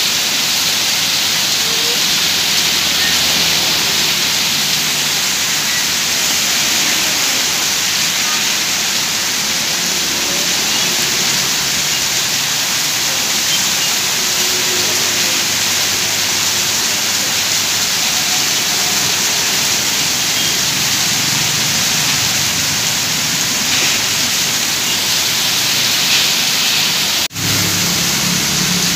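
Torrential rain hammering on a flooded street, with runoff pouring off a roof edge: a loud, steady, dense hiss. Near the end the sound cuts out for an instant, and a motorbike's low engine hum comes in under the rain as it rides through the water.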